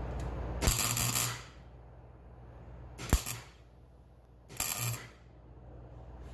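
Wire-feed (MIG) welder laying three short tack welds on a thin sheet-metal patch panel in a car's floor pan. Each tack is a brief crackling sizzle: the first, about a second in, is the longest, and the others come near three and four and a half seconds. A steady low hum runs underneath.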